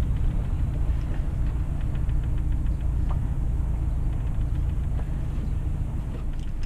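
A sailboat's inboard engine running steadily at low revs while the yacht motors slowly under bare poles, a constant low rumble.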